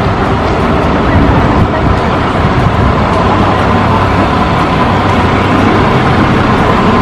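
Street traffic noise with a city bus running close by: a dense, even rush of sound with a steady low hum underneath.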